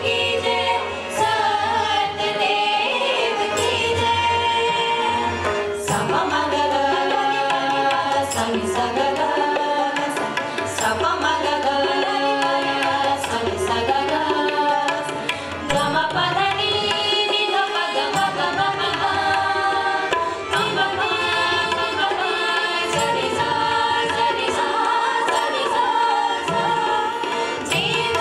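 Group of women singing a devotional song together to harmonium accompaniment, with small hand cymbals (manjira) striking in time.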